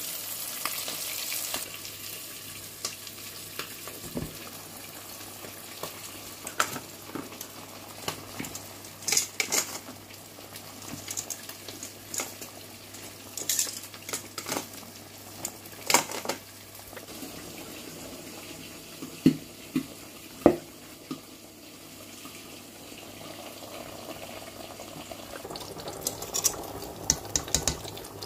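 Cooking in a pot: fish frying in oil with a steady sizzle, and a pot of vegetables boiling. A metal utensil clinks against the pot now and then, loudest about two-thirds of the way through.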